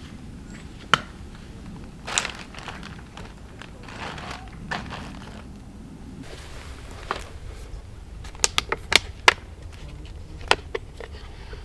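Scattered sharp clicks and knocks over light rustling, with a quick run of about six clicks between eight and nine and a half seconds in.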